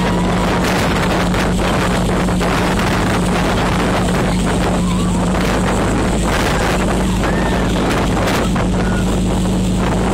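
Boat engine running steadily under way, a constant low drone, with wind buffeting the microphone and rushing water noise.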